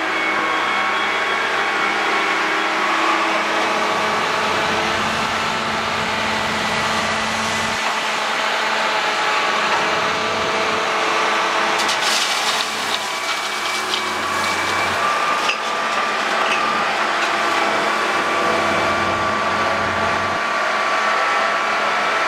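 CAT 330C Longfront excavator's diesel engine and hydraulics running steadily as it digs and swings with a load of gravel. About twelve seconds in, the bucket empties into a steel tipper semitrailer: a rattling rush of stones lasting about two seconds.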